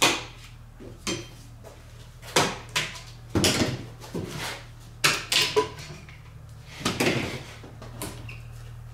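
Bar clamps being released and set down on an aluminum boat: a string of irregular clacks and metallic knocks, about a dozen over several seconds, over a steady low hum.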